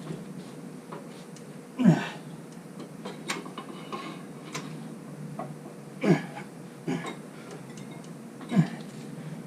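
A man grunting with effort, four short grunts falling in pitch, while straining to force a motorcycle tire's bead off the rim, with a few light clicks and clinks of the tire-changing tools in between.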